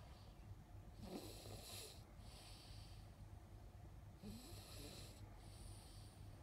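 A young boy snoring like a grown man, in a slow rhythm of raspy breaths about three seconds apart.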